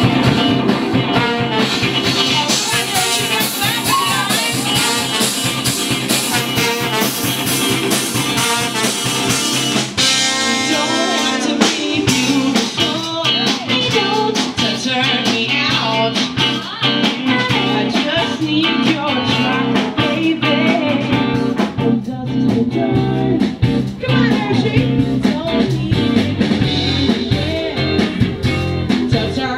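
Live pop-rock band playing, with electric guitars and a drum kit, and a woman singing lead. About ten seconds in the band briefly thins to a held chord, then the full beat comes back.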